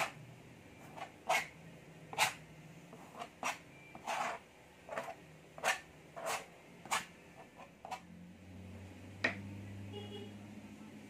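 Palette knife scraping and dabbing paint on a canvas in a string of short strokes, one or two each second, with one longer drag about four seconds in. Near the end the strokes stop, and a click is followed by a faint low hum.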